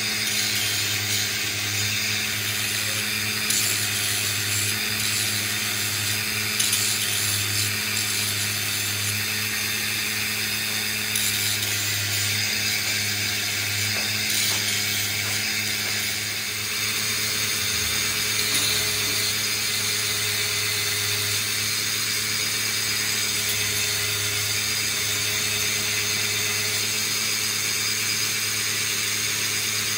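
Electric grinding wheel on a motor-driven spindle running steadily, with the teeth of a large steel truck gear held against it and ground: a constant motor hum under a dense grinding hiss.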